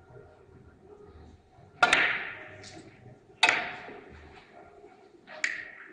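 Three-cushion carom billiard balls struck by the cue and colliding: three sharp clacks about a second and a half apart, each ringing briefly, the last one softer.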